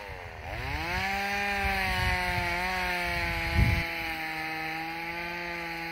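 Chainsaw running at high revs, cutting firewood: its pitch dips at the start, then holds steady. A dull thump comes about three and a half seconds in.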